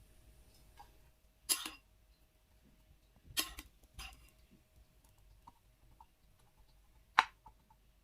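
Kitchen utensil clinking against a cooking pan: four sharp, separate clinks with a few lighter ticks between, over a faint steady hum.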